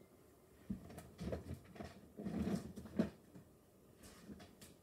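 Plastic toy figures being handled and rummaged through: a string of knocks and rustles in the first three seconds, the loudest about three seconds in, then a few light clicks near the end.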